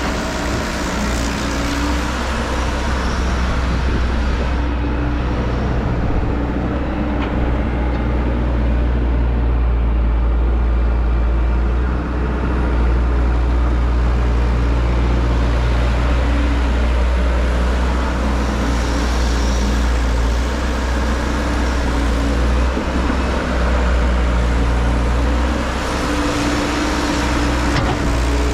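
A heavy vehicle's engine running steadily, a low drone that stays loud throughout, with small rises and dips in level.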